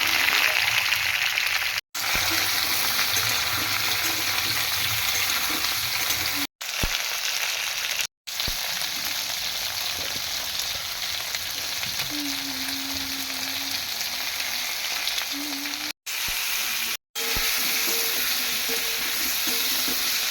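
Food frying in hot oil in a pan, a steady sizzle with stirring. It cuts out to silence for a moment several times.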